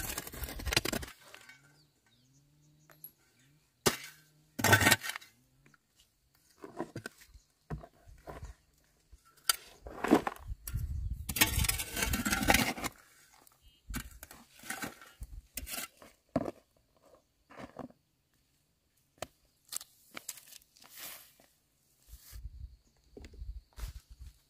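Irregular crunching and scraping noises in short spells with quiet gaps between them, the loudest about four to five seconds in and again from about ten to thirteen seconds in.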